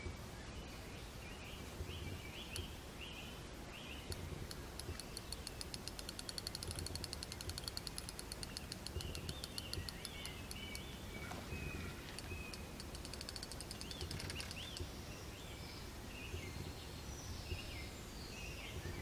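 Fishing reel on a rod clicking rapidly for about ten seconds while a hooked fish is played, with birds chirping throughout.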